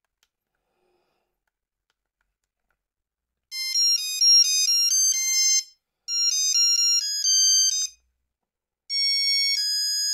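Near silence for about three and a half seconds, then a Nokia 3330 plays a monophonic, beeping ringtone melody in three phrases with short pauses between them.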